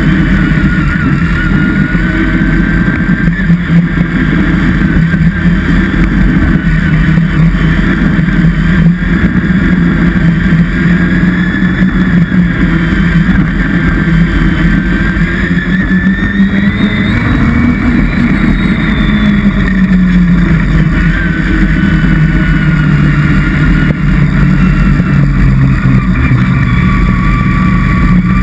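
A vehicle engine running loud and steady throughout, its pitch rising a little past the middle and then easing back down.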